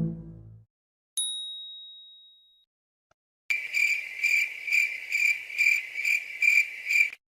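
Editing sound effects: a single bright ding about a second in that rings out, then from about halfway a cricket-chirp effect, a high trilling tone pulsing a little over twice a second for about three and a half seconds before stopping abruptly.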